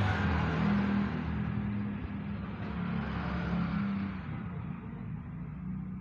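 A road vehicle's low rumble and hiss, gradually fading away.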